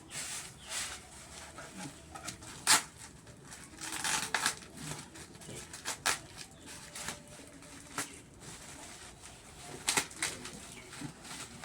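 Flutes and their packaging being handled during unboxing: scattered clicks and taps, a sharp knock a little under three seconds in, and a rustle of packing about four seconds in.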